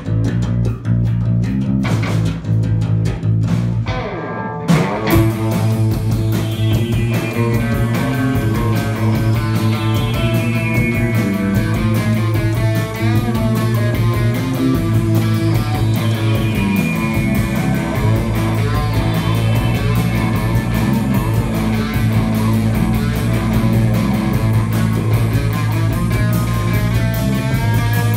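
Live rock band playing electric guitars, bass guitar and a drum kit. The opening seconds are sparser, with sharp drum hits, then about five seconds in the full band comes in together and plays on steadily.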